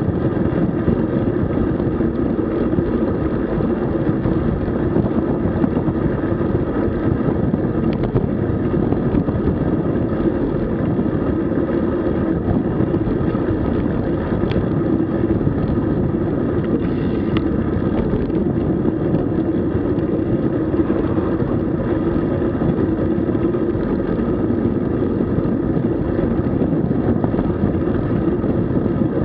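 Steady rush of wind on the microphone mixed with road and tyre noise from a road bike riding along, with a few faint clicks near the middle.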